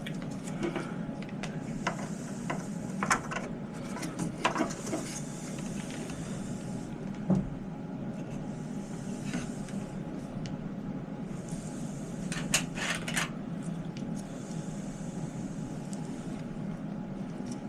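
Scattered light clicks and knocks of hands handling RAM modules and the open desktop case, with a dull thump about seven seconds in and a quick run of clicks near the end, over a low steady hum.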